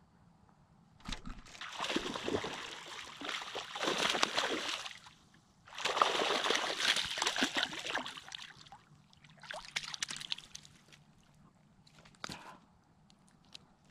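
Water splashing and sloshing in two long bouts of several seconds each, then two shorter splashes.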